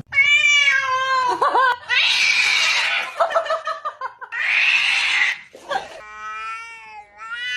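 Cat yowling, long drawn-out wavering cries, broken twice by harsh, noisy screeches.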